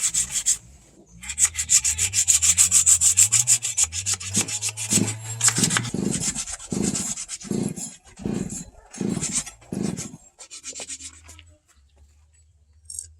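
Hand rubbing strokes, like filing or sanding, on a knife being finished: quick, even back-and-forth strokes, then slower, heavier strokes about a second apart that fade out near the end.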